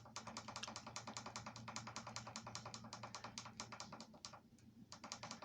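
Rapid, evenly spaced clicking, about nine clicks a second, over a steady low hum. The clicking stops about four seconds in, then a few more clicks follow near the end.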